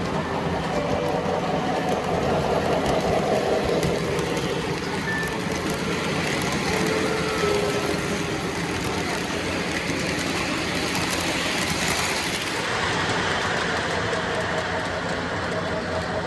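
Lionel O gauge model trains running on the layout: a steady, unbroken running noise from the locomotive motors and the wheels on the track.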